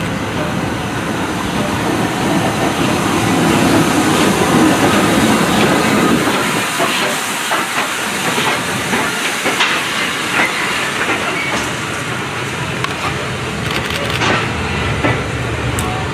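Merchant Navy class steam locomotive 35018 British India Line passing at close range, followed by its coaches: a low rumble of wheels and motion, strongest in the first few seconds, with a steady hiss of steam and scattered clanks.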